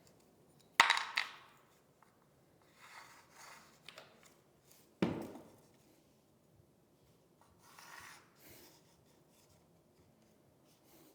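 Hard knocks and handling of tools and vinyl flooring planks. There is a sharp knock about a second in, a louder one about five seconds in, and quieter rubbing and shuffling between them.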